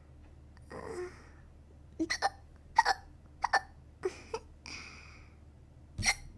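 A woman hiccuping repeatedly: short, sharp voiced hiccups, several coming in quick pairs, with soft breaths in between.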